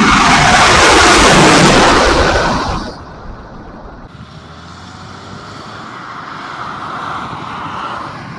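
A loud rushing roar, falling in pitch, drops away about three seconds in. It is followed by a steady rush of wind with the faint hum of the Neos Boeing 737 MAX 8's CFM LEAP-1B jet engines on approach, slowly growing louder.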